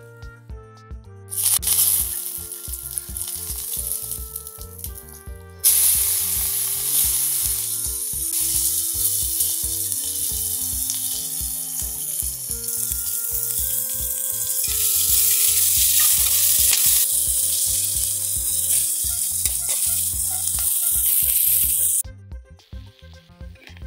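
Sliced garlic and onion sizzling loudly in hot oil in a blackened iron karahi, stirred with a ladle. A shorter stretch of sizzling starts about a second in and breaks off; louder, steady sizzling starts suddenly and cuts off abruptly near the end. Background music with slow, stepped notes plays underneath.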